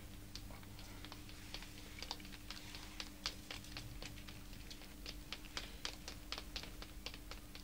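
Faint, quick tapping footsteps of cartoon characters hurrying along a stone alley: short irregular taps, about three or four a second, over a low steady hum.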